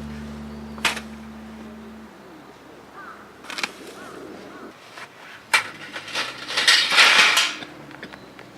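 A held music chord dies away, then come scattered sharp knocks and a short rustling clatter.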